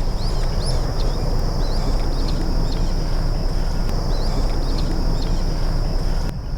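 Steady rushing noise, heaviest in the low end, with many short bird chirps and a steady high insect buzz over it.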